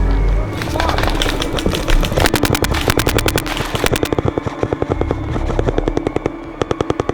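Rapid automatic gunfire, about a dozen shots a second for a couple of seconds, then shorter, sparser bursts.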